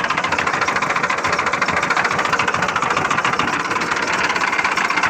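Massey Ferguson 240 tractor's three-cylinder diesel engine running steadily, heard close up at the engine block, with a rapid, even diesel clatter.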